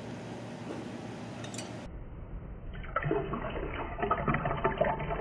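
Lime juice pouring from a bottle into a stainless-steel jigger and shaker tin. It is a splashing trickle that begins about halfway through and sounds duller after an abrupt change in the sound.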